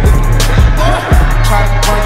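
Hip hop track playing loud, with a heavy bass line, a kick drum about every half second and a vocal line over it.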